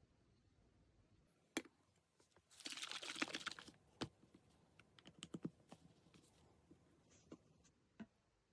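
Scattered light clicks and taps of small hard objects, with a brief denser rattling clatter about three seconds in and a quick run of taps a little later.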